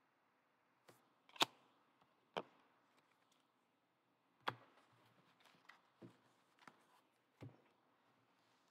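Trading cards being handled and set down on stacks of cards: a string of faint taps and clicks with light rustling between them, the sharpest about a second and a half in.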